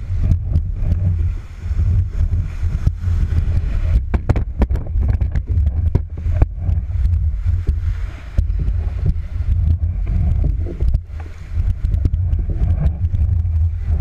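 Canoe running big whitewater waves: a loud, heavy rumble of rushing water and wind buffeting the microphone, broken by frequent sharp splashes and slaps against the hull.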